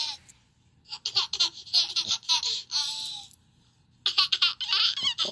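A baby laughing in high-pitched giggling bursts, played through a laptop's speakers, in two bouts with a short pause between them.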